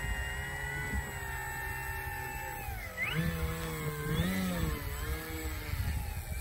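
Electric motor and propeller of a radio-controlled Carbon Cub model plane taxiing on grass: a steady whine that dips sharply about three seconds in, then rises and wavers as the throttle changes. Wind rumbles on the microphone.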